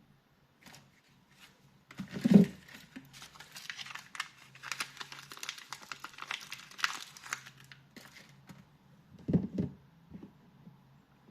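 Soap packaging wrapper crinkling and tearing as a bar of soap is unwrapped, a dense crackle lasting several seconds. A thump about two seconds in, and two more near the end.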